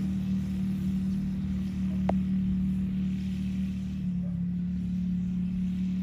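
A small ATV engine running at a steady pitch as the four-wheeler drives away over snow, growing slightly fainter. A single sharp click comes about two seconds in.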